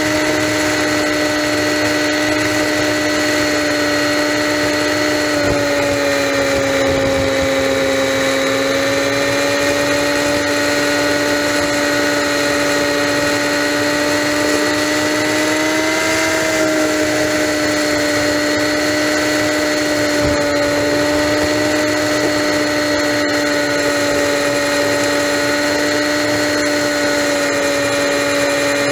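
Honda Magna motorcycle's V4 engine running steadily at highway cruising speed, a constant hum over rushing wind. Its pitch sags slightly a few seconds in and lifts briefly about halfway through.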